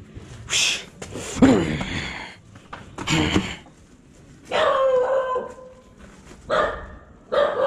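A dog barking repeatedly, about six calls in all. Some are short barks and some are drawn out into longer, steady-pitched whines.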